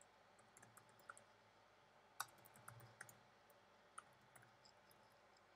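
Faint, irregular clicks of keys on a computer keyboard being typed on, the loudest about two seconds in.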